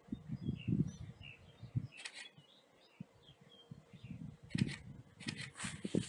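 Small birds chirping faintly, over footsteps rustling through dry grass and low, irregular rumbles on the microphone.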